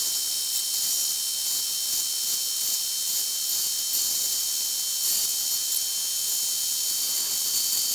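Milling machine running an end mill through square steel tubing: a steady high-pitched hiss and whine with almost no low rumble.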